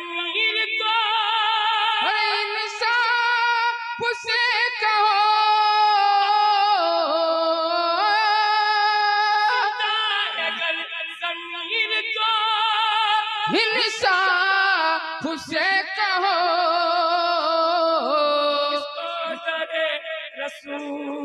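A man singing a naat unaccompanied into a microphone, a long drawn-out passage of held, wavering notes that slide up and down, with a short break about halfway through.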